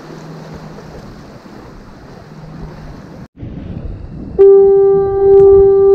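Foghorn sounding one long, steady blast that starts about four and a half seconds in and is still going at the end. Before it there is an even rush of wind and surf on the jetty rocks.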